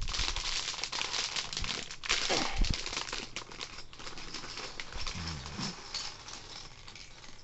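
Clear plastic Lego parts bag crinkling and crackling as fingers twist and pull it open, busiest in the first few seconds and thinning toward the end. A brief low vocal hum about five seconds in.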